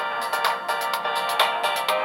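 Background music: a quick melody of pitched notes, about four notes a second.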